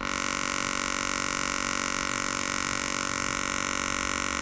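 Steady sawtooth-wave synthesizer tone from a Web Audio API oscillator, passed through a notch filter. About two seconds in, the notch sweeps down through the tone and back up to a middle frequency, shifting the tone's colour.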